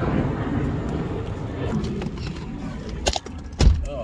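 A passing airplane makes a steady rushing drone. Near the end comes a sharp click, then a heavy thump as the Cadillac STS's door is shut.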